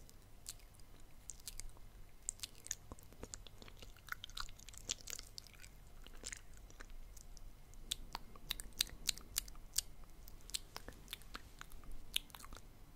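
Close-miked ASMR mouth sounds: wet tongue clicks and lip smacks, coming irregularly several times a second, thickest in the second half.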